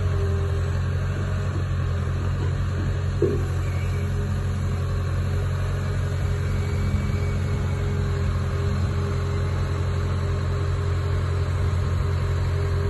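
Caterpillar hydraulic excavator's diesel engine running steadily with a low hum and a steady higher whine, while the hydraulics lift the boom and curl the bucket.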